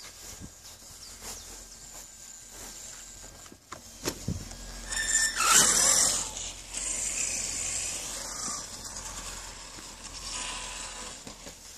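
HPI Savage XL Flux electric RC monster truck speeding across grass: about five seconds in a short loud rush of brushless motor and gear whine with tyres tearing through the grass, then fading as the truck drives away.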